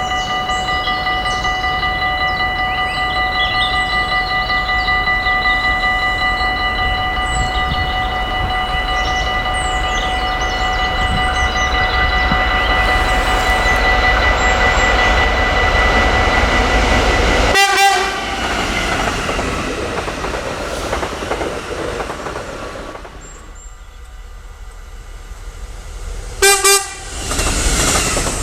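A level-crossing bell rings steadily while a train's rumble grows and passes, and the bell stops about two-thirds of the way in. A short horn blast comes as the bell stops, and a second, louder short horn blast comes near the end as the rumble rises again.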